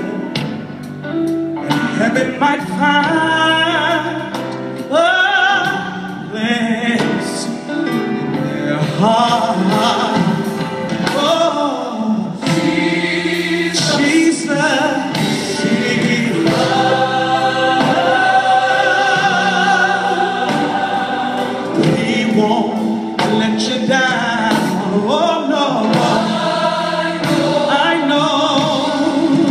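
Live gospel song: a male soloist sings lead over a large choir, heard through a big hall's sound system from the audience.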